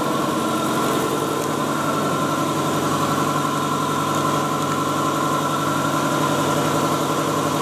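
Zhongtuo cut-to-length and slitting machine for steel coil running: a steady mechanical hum with a steady high whine.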